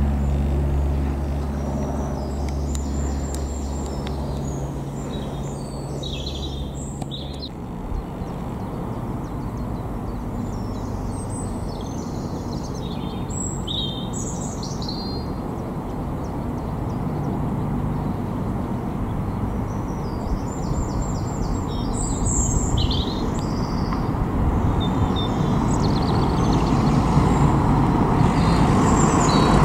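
A single-engine light aircraft's piston engine drones steadily overhead for the first several seconds, then drops away. Birds chirp throughout, and another light plane's engine noise builds louder near the end.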